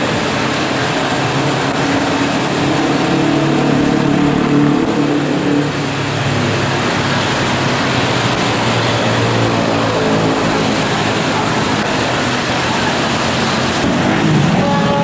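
Steady traffic din of vehicle engines. One deep engine note drifts up and down in pitch.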